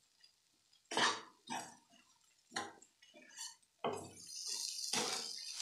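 Steel spoon stirring dry fish masala in a non-stick kadai on the stove. A few short separate sounds come in the first seconds, then from about four seconds in a steady frying sizzle and scrape of stirring builds up.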